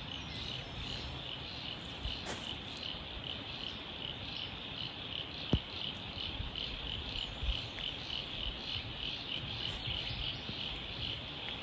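Crickets chirping in a steady chorus, pulsing about three times a second, with one sharp click about five and a half seconds in.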